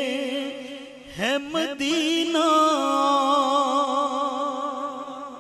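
Man singing an Urdu naat (devotional poem in praise of the Prophet), holding long wavering notes. About a second in the voice breaks off briefly and slides up into a long held final note that slowly fades away near the end.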